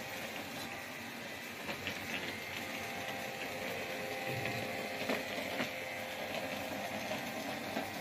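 Small robot vacuum cleaner running across a tiled floor: a steady whirring hiss with a faint motor whine, and a few light clicks scattered through.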